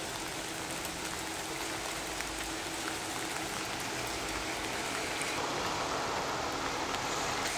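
Steady rain falling, with the hiss of traffic on a wet city street; the hiss grows a little louder about five seconds in.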